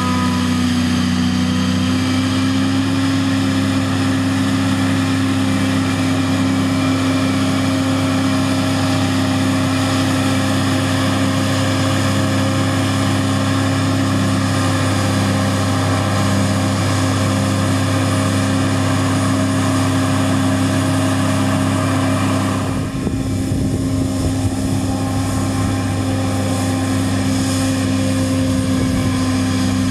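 Self-propelled forage harvester chopping wholecrop rye, with a tractor and trailer running alongside: a loud, steady machine drone with a pulsing hum underneath. The sound shifts abruptly about 23 seconds in.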